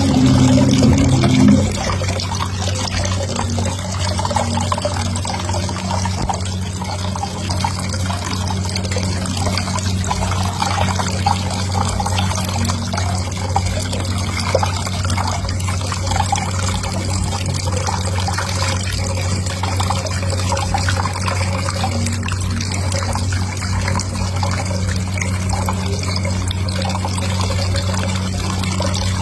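Artificial waterfall: water pouring and splashing steadily, with a steady low hum underneath.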